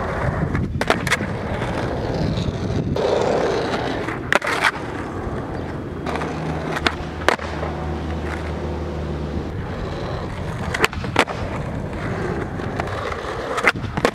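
Skateboard wheels rolling on rough asphalt, broken about five times by sharp wooden clacks, mostly in quick pairs: the tail popping, then the board landing after a flip trick.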